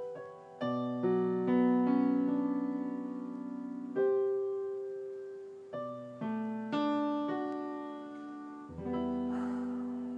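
Background piano music: slow, soft notes and chords struck one after another, each ringing and fading away, with a deep bass note coming in near the end.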